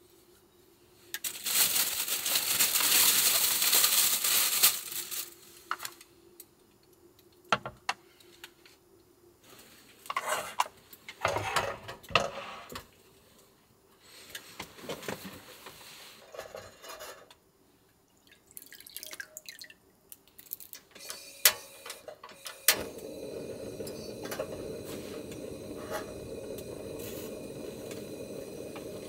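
Water pouring for a few seconds, then scattered clinks and knocks of dishes and utensils being handled. About two-thirds of the way in, a steady low rushing starts and holds.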